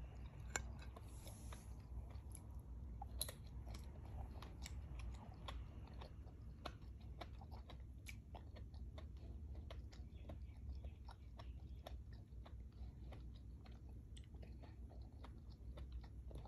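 A person chewing soft young coconut (buko) meat close to the microphone: a steady run of small, wet mouth clicks, with a couple of louder ones about half a second and three seconds in.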